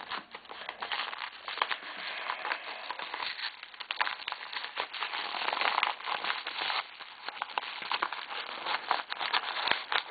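A padded bubble mailer being pulled and torn open by hand: a steady run of crinkling and crackling with many small clicks.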